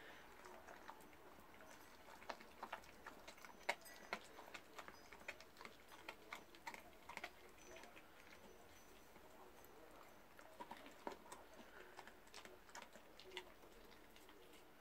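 A husky cross collie crunching on a raw oxtail bone: faint, irregular cracks and clicks of teeth on bone, with a quieter spell past the middle.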